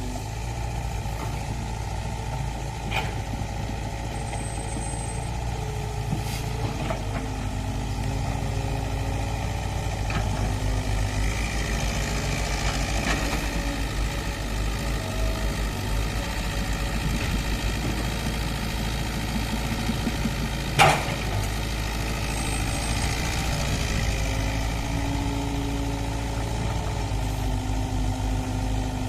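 Excavator diesel engines running under load as the machines dig, their pitch shifting up and down as they work. A single sharp clank stands out about two-thirds of the way through.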